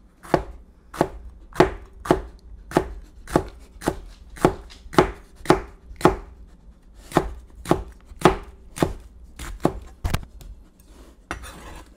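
Kitchen knife slicing a jalapeño into rings on a plastic cutting board: a steady run of sharp chops just under two a second, with one short pause a little past the middle, and a brief scrape near the end.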